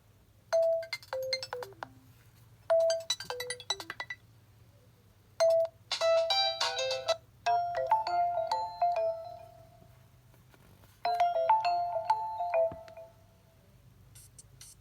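A Nokia Lumia 520 ringtone: a melody of bell-like notes, a short falling phrase played twice, then a longer, busier phrase with a ringing tail that comes round again near the end.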